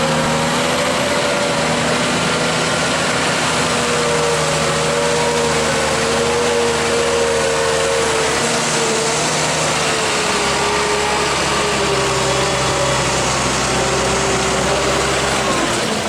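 John Deere 1210E forwarder's diesel engine running hard and steadily, its pitch wavering slightly up and down over a constant hiss of mechanical noise.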